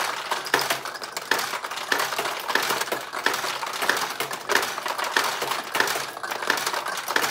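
Old mechanical pachinko machine in play: steel balls clattering and pinging down through the pins of the playfield. A sharp clack repeats about every two-thirds of a second.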